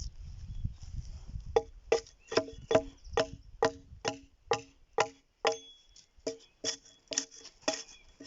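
A steady run of sharp knocks with a short ring to each, about two to three a second, starting about a second and a half in, with a brief pause near the end.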